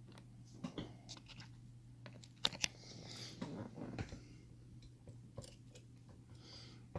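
Light metallic clicks and scrapes of lever-lock picks being worked in a Squire 660 lever padlock, with two sharper clicks about two and a half seconds in.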